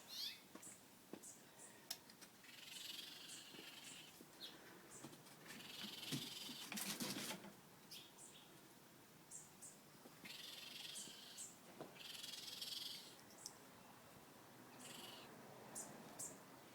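Baby raccoons calling faintly: a string of breathy calls, each about a second long, with brief high squeaks between them.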